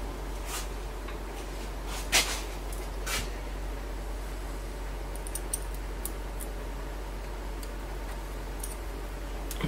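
Light clicks and rustles of hands working a feeler gauge and tools around a stopped diesel engine's valve rocker arms while the valve lash is set. The strongest click is about two seconds in, with a few fainter ticks later, over a steady low hum.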